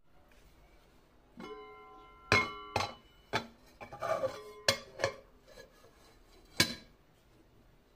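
Aluminium kazan lid knocking and clinking against the pot's rim as it is lifted, turned over and set back down: about seven sharp metallic knocks, several ringing briefly, with a scrape of metal on metal about halfway through.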